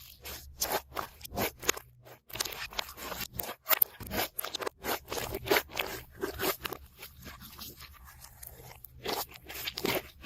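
Slime being worked by hand at close range, giving an irregular run of crackles and pops.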